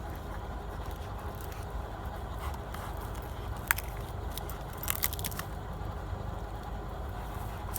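A black Labrador biting and tearing at small trees, with scraping and a few sharp cracks of snapping wood about halfway through, over a steady low rumble.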